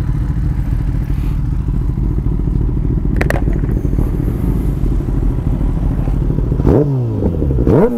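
Kawasaki ZX-10R's inline-four engine idling with a low rumble, with a single click about three seconds in, then two quick throttle blips near the end, each rising sharply in pitch and falling straight back. The blips are meant to throw flames from the exhaust.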